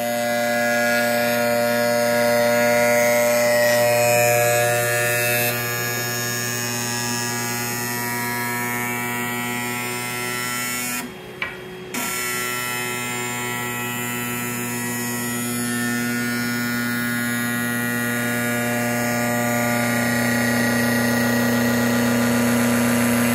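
Sparx electric skate sharpener running with a hockey skate clamped in it: a noisy, steady buzzing hum of its motor and grinding wheel. The sound drops away for about a second roughly eleven seconds in, then comes straight back.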